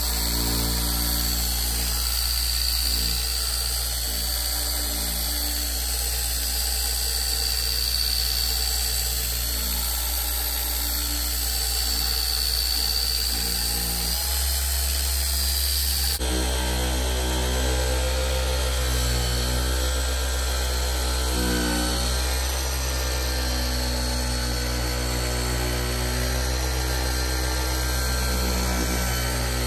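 Electric machine polisher running steadily on car paint, with a steady whine. Its tone shifts abruptly about 14 seconds in and again about 16 seconds in.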